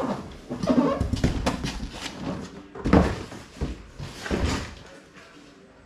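Large cardboard printer box being pulled up off a foam-packed printer, with scraping and rustling of cardboard against polystyrene and several knocks, the loudest about three seconds in. The sound dies away near the end.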